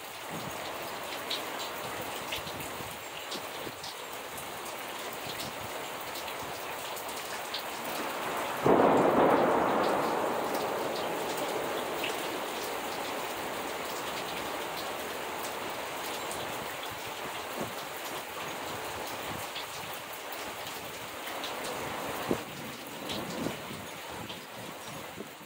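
Steady rain falling, with scattered drips. A sudden clap of thunder comes about nine seconds in and rumbles away over several seconds.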